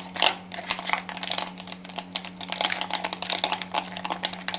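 Ice cubes clicking and knocking against a bowl as desi ghee is beaten with them by hand: a rapid, irregular clatter of small clicks.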